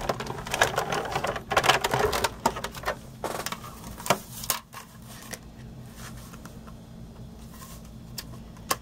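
Cuttlebug die-cutting and embossing machine being hand-cranked, the embossing folder and plates rattling and clicking through its rollers for about three and a half seconds. After that come a few separate clicks.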